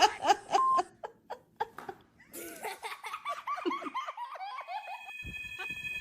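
Bouts of laughter in quick repeated pulses: a short one at the start and a longer one from about two seconds in.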